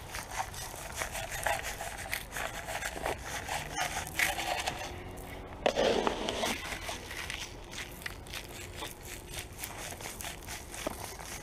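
Rock salt crunching and crackling on a concrete sidewalk under walking boots, a dense run of small irregular clicks. A louder scrape comes about six seconds in.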